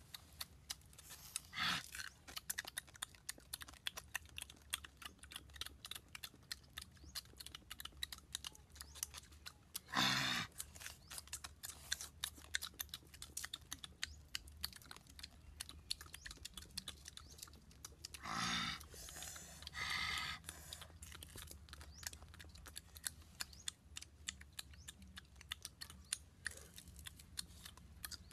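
Chewing and crunching of fried snake pieces, close up: a steady run of small crisp clicks as the meat and bones are bitten and picked apart. It is broken by a few louder short sounds, about two seconds in, around ten seconds and twice near eighteen to twenty seconds.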